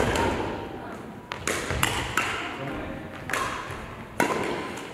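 Badminton rally: rackets striking the shuttlecock in several sharp, irregularly spaced hits, roughly a second apart, each with a short ringing tail.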